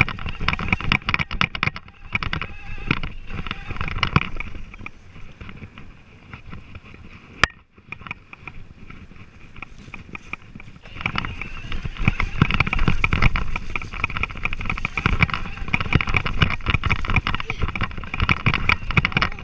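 Revvi 16 Plus electric balance bike riding over bumpy grass: a steady electric-motor whine under constant rattling and wind on the handlebar-mounted microphone. It falls quieter for a few seconds in the middle, with a single sharp click, then picks up again about eleven seconds in.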